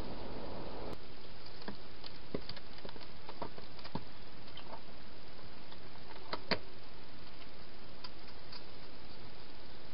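A hedgehog eating from a bowl inside a plastic feeding box: scattered small crunches and clicks, the loudest pair about six and a half seconds in, over a steady background hiss.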